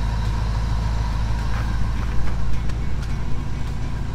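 A 1977 Chevrolet C10 pickup's engine idling steadily.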